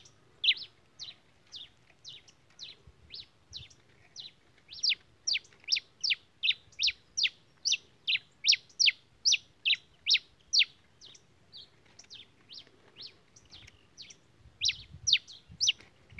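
A pileated finch (tico-tico-rei-cinza) calls a long run of sharp notes, each falling quickly in pitch, about two or three a second. Stretches of fainter notes alternate with louder ones.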